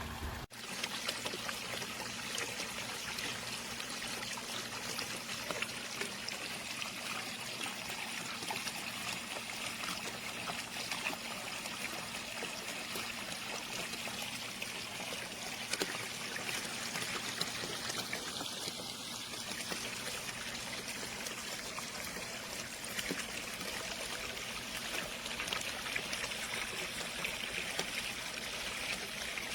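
Water from an Intex 56028 pool waterfall sprayer, fed by the filter pump, falling steadily into the pool with a constant splashing trickle.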